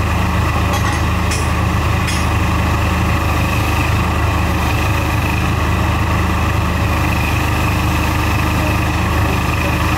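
Steady engine drone of a drilling rig's power unit and air compressor running together. A few faint clicks come about one to two seconds in.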